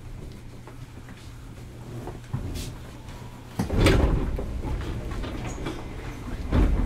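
Inside a JR East 205 series commuter train car: a steady low hum, broken about three and a half seconds in by a sudden loud clatter that fades over a second or so, and a second, shorter one near the end.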